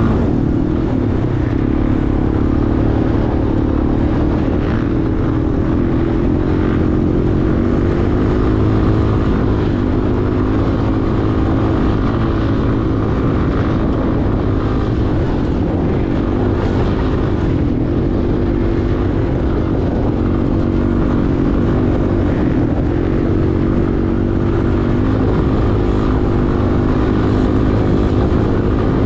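ATV engine running at a steady cruising throttle as the quad rides along a dirt trail, its pitch wavering slightly with the throttle.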